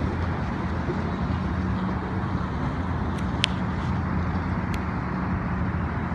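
Steady low motor rumble with a constant hum over a wash of outdoor noise, and two brief high chirps, one about three and a half seconds in and one near five seconds.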